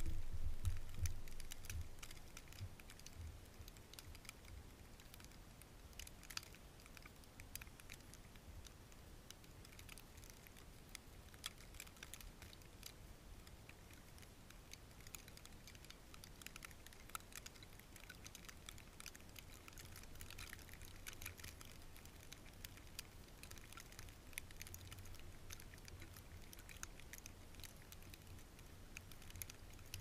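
Footsteps crunching in snow, fading over the first couple of seconds as the walker moves away, followed by faint, scattered light ticks and patter.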